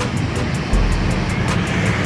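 Street traffic: motorcycle and car engines running as vehicles move along a busy city road, a steady low rumble that swells about a third of the way in.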